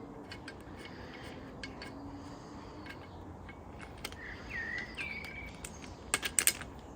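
Faint birdsong with a few short chirps, and near the end a quick cluster of sharp metallic clicks from the wrench working on the engine's stud nuts.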